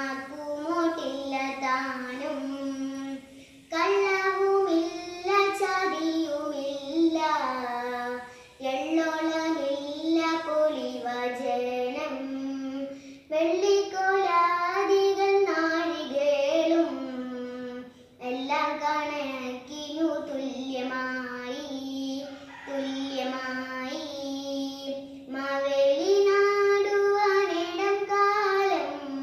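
A young girl singing a Malayalam song solo, in phrases of a few seconds with short breaths between them.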